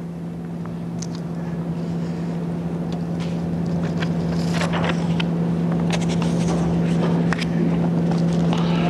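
Steady electrical hum with a row of overtones, the loudest thing throughout, with scattered light rustles and clicks of transparencies being handled on an overhead projector in the middle seconds.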